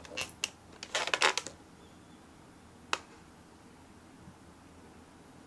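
Bare feet stepping onto a digital bathroom scale on a wooden floor: a few light taps and clicks in the first second and a half, and one more sharp click about three seconds in.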